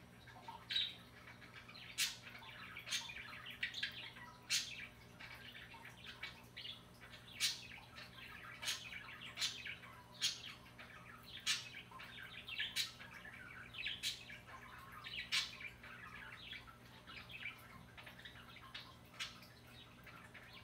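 Small birds chirping: short, sharp chirps coming irregularly, roughly one a second.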